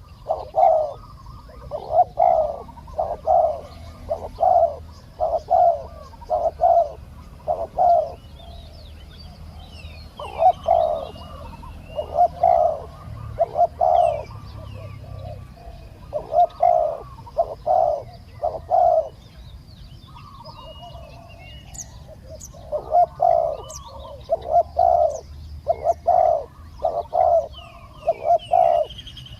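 Spotted dove cooing: phrases of several short, low, hollow notes, repeated with short pauses between phrases. Faint chirps from small birds sound higher up in the background.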